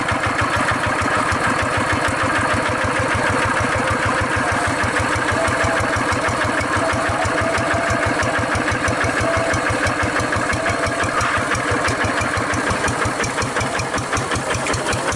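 Kubota RD 85 walking hand tractor's single-cylinder diesel engine running with a steady, rapid, even firing beat.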